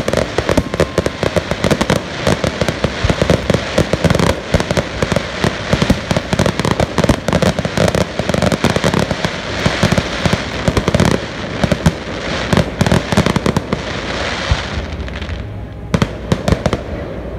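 Fireworks going off in a dense, rapid barrage of pops and bangs. About 15 seconds in they thin out to a few separate bangs.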